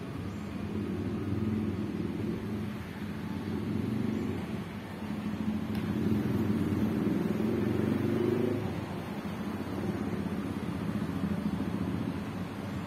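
Street traffic: motor vehicle engines running and passing, with one louder pass about six seconds in whose engine note rises before it fades off near nine seconds.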